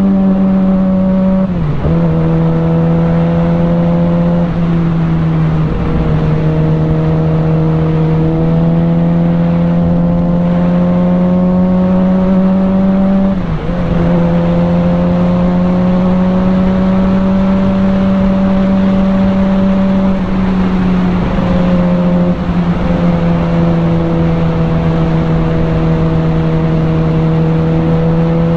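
Sport bike engine heard from the rider's seat, running steadily at cruising revs; the note dips briefly and steps to a new pitch a few times as gears are changed, rising or sagging slowly in between.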